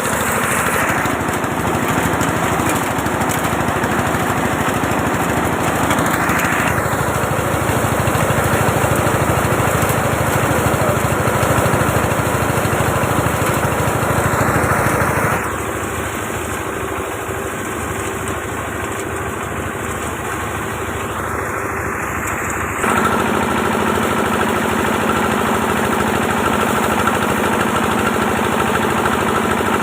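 A small engine running steadily with a fast, even pulse. About halfway through it becomes a little quieter and duller for several seconds, then returns to its earlier level.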